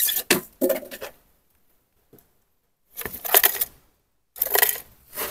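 Small hard loose objects rattling and clinking inside a container as it is shaken and opened, in three short clattering bursts separated by sudden dead-silent gaps.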